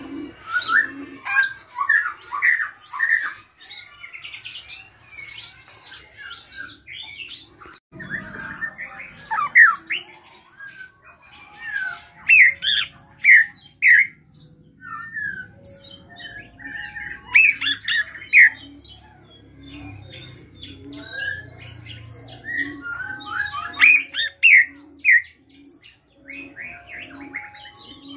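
Caged drongo singing in bursts of loud, sharp whistled and chattering notes, each phrase different from the next, in the varied mix of borrowed calls that keepers prize.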